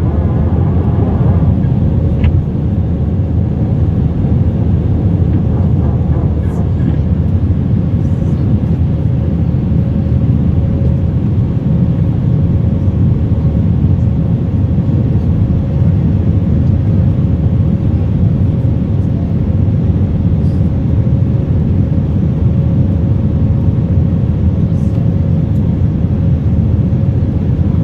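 Cabin noise inside an Airbus A319-132 during takeoff: the IAE V2500 turbofans at high thrust give a steady, loud rumble with a steady hum over it.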